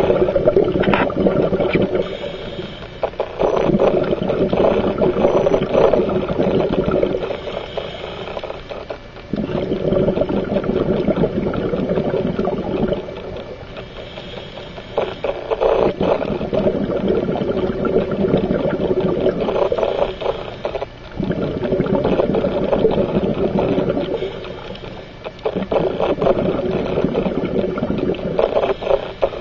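Scuba diver breathing through a regulator underwater: bubbling bursts of exhaled air every five or six seconds, with quieter gaps between them.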